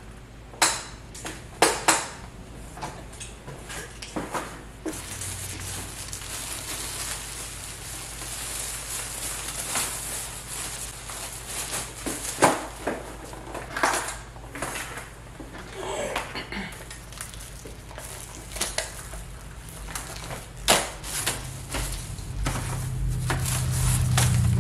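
Clear plastic wrapping rustling and crinkling as a new pleated air filter is unwrapped and handled, with scattered sharp clicks and knocks. A low rumble builds near the end.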